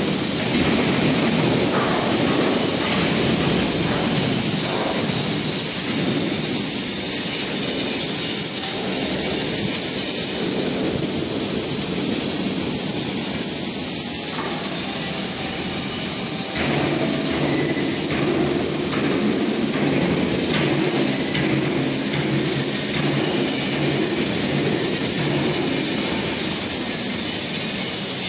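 Steady loud factory-floor din, a continuous rumble with a hiss over it and no distinct events; its low part shifts in character about sixteen seconds in.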